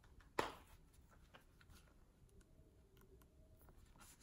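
A small leather wallet's press-stud closure snapping once, sharply, about half a second in, then faint light clicks and rustles as the wallet is handled.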